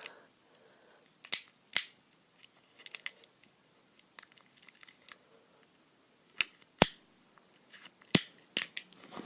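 Fidget pad's buttons and switches being clicked: irregular sharp clicks, the loudest coming in pairs about half a second apart, with fainter ticks between.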